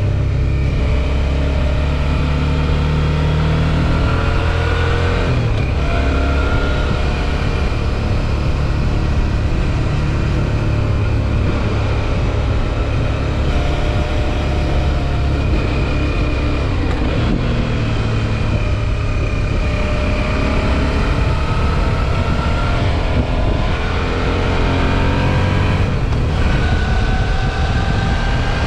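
Suzuki V-Strom 650 XT's 645 cc V-twin engine running on the move, its pitch rising and falling several times with throttle and gear changes. A steady rush of wind noise runs underneath.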